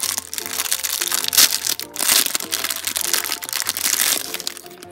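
Thin clear plastic wrapper crinkling loudly in uneven surges as a small toy packet is handled and pulled open, over background music with a simple melody.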